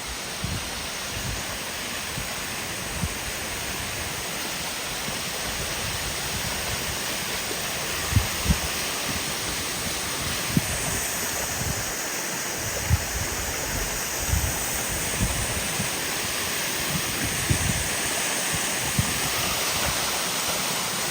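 Steady rushing of a waterfall, with scattered short low thumps.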